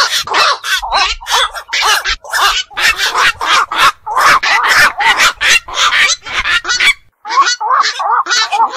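Black-crowned night heron calls: harsh calls in quick succession, about three a second, with a short break about seven seconds in.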